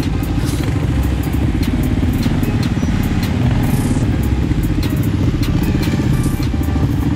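Several ATV engines running at low speed close by, a steady rumble with many short clicks and knocks scattered through it.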